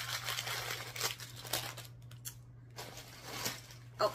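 Clear plastic packaging bag crinkling and rustling as it is handled and pressed flat, with a short lull about halfway and lighter rustling after.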